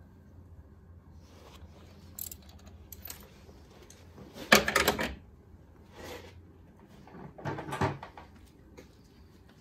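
Hand tools being handled and set down, clattering and knocking in several short bursts, loudest about halfway through.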